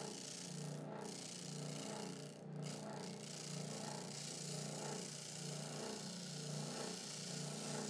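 Ridgid oscillating spindle sander running with its 1.5-inch sanding spindle while wood is sanded against it: a motor hum that swells and fades in a regular rhythm under a steady sanding hiss.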